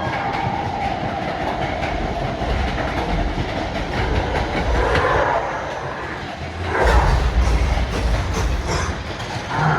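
Matterhorn Bobsleds roller coaster car rattling along its track, a steady clattering rumble that swells about seven seconds in.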